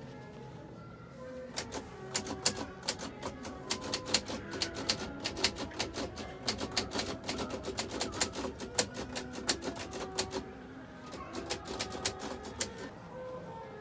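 Rapid, irregular clicking over sustained musical tones. The clicking starts about a second and a half in, breaks off near ten seconds, and comes back briefly before stopping shortly before the end.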